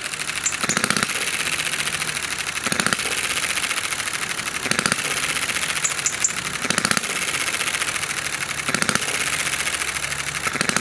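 Small 6cc single-cylinder four-stroke hit-and-miss model petrol engine running, a fast steady mechanical clatter with a louder burst about every two seconds. It is running very rich just after starting, with the carburettor needle being turned in.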